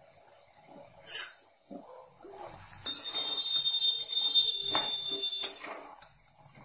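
A perforated steel frying spoon clinking and scraping against a metal kadhai while stirring snacks deep-frying in hot oil, over a hiss of sizzling oil. Sharp clinks come about a second in, near three seconds and twice near five seconds, and a thin high squeal of metal scraping on metal runs between the three- and five-second clinks.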